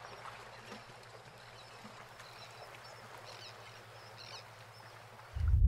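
Faint open-air sea ambience, a soft even wash with a few brief distant bird chirps. Just before the end, a loud deep boom starts suddenly.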